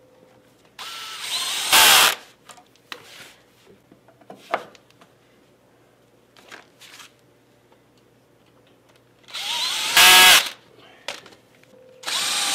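DeWalt cordless drill-driver driving screws through wooden posts into a shelf, in two runs of about a second each, about a second in and near ten seconds in. Each run starts softer and then runs faster and louder, and another run begins at the very end. Light knocks of wood being handled between the runs.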